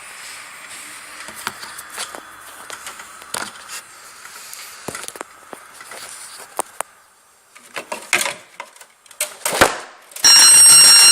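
A fire alarm system goes off abruptly about ten seconds in, a loud, steady, high-pitched electronic tone, set off by the smoke detector sensing smoke. Before that there are only scattered clicks and handling noise.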